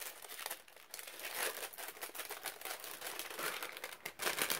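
Packaging crinkling and rustling as a small advent calendar item is handled and unwrapped: a run of irregular crackles, louder about a second and a half in and again near the end.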